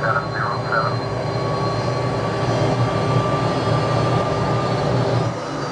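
DC-10 jet engines running steadily: a continuous low rumble with a thin whine that holds and rises slightly in pitch.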